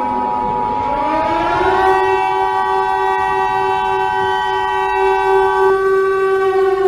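Emergency Alert System two-tone attention signal sounding steadily, then cutting off near the end. Under it an outdoor warning siren winds up in pitch over the first two seconds and then holds a steady wail.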